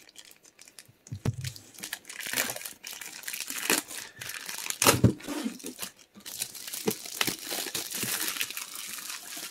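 Packaging of a Pokémon card collection box being torn open and handled: irregular crinkling, tearing and rustling that gets denser in the second half, with a soft knock about five seconds in.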